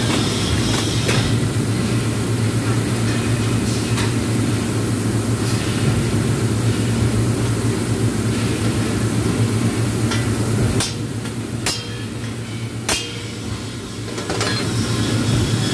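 Steady low electrical hum and drone of submerged arc welding equipment running. About two thirds of the way in it dips in level for a few seconds, with a couple of sharp clicks, then returns.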